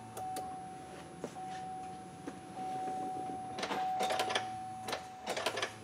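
Ignition key cycled on and off on a 2004 Chevy Tahoe to prime the fuel system: a steady whine runs under scattered clicks, with clusters of clicks near the end. A low hum, the fuel pump energizing for about two seconds on key-on, stops at the start and returns a little after four seconds in.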